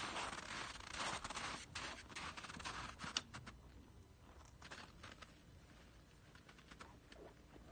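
Footsteps crunching in packed snow, loudest for the first three seconds, with one sharp click about three seconds in; then only faint scattered crunches.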